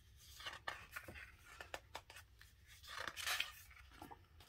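Paper pages of a planner sticker book handled and turned: several light taps and clicks in the first two seconds, then the rustle of a page being turned about three seconds in, the loudest part.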